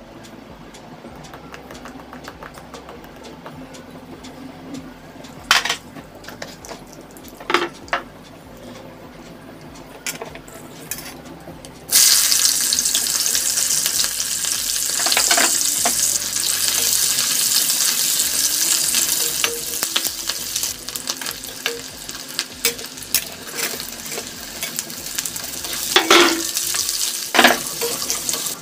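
A few light knocks over quiet, then about twelve seconds in, a sudden loud sizzle as vegetables go into hot oil in a steel kadhai. Potatoes and pointed gourd (parwal) keep frying, with a metal spatula clattering and scraping against the pan as they are stirred.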